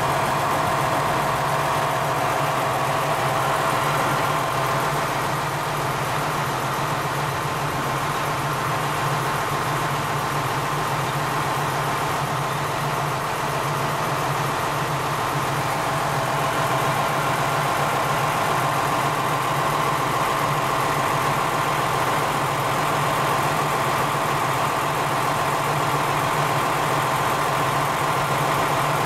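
Diesel engine of a JR Kyushu KiHa 47 railcar idling steadily while the railcar stands still. It makes an even low drone with a steady higher tone above it.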